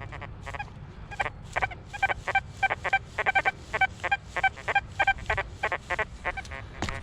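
XP Deus 2 metal detector giving a rapid run of short, buzzy tones, about three a second, starting about a second in, as the coil sweeps the ground. These are the crunchy tones that hot, mineralised clay soil and iron produce with the discrimination set very low.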